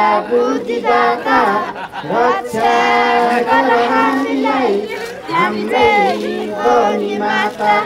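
A group of schoolchildren singing a prayer together in unison, in held phrases broken by short pauses.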